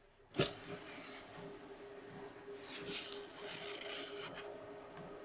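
A sharp knock about half a second in, then gloved hands rubbing and shifting on the wooden body of an antique jack plane as it is handled and turned, over a faint steady hum.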